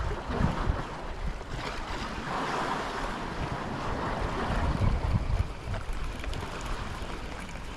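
Sea waves washing against a rocky shore, swelling and easing, with wind buffeting the microphone.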